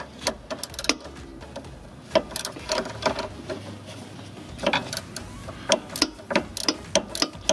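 Steel wrenches clicking and clinking against the lower nut and stud of a front sway bar link as they are fitted and worked, in irregular single clicks and short clusters.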